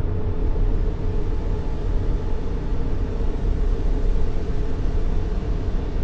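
Continuous sleep-aid noise for soothing a baby: a deep, even rumble, heaviest in the bass and thinning toward the top, with no breaks or tones.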